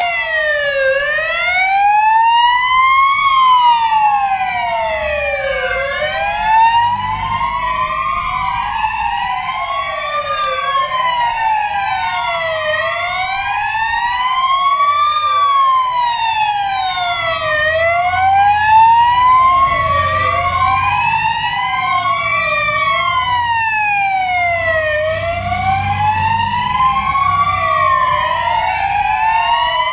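Several fire engine sirens wailing at once, each rising and falling slowly, about five seconds per cycle, out of step with one another. Heavy truck engines rumble underneath, more strongly in the second half as the fire engines drive past.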